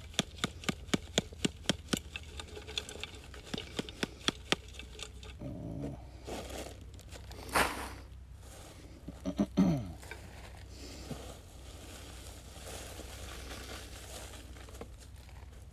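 Trapper's dirt sifter shaken over a bedded foothold trap, dirt rattling through the screen in quick even strokes, about three to four a second, for the first four seconds or so. After that dry leaves rustle as they are handled and scattered over the set, with two louder crunches near the middle.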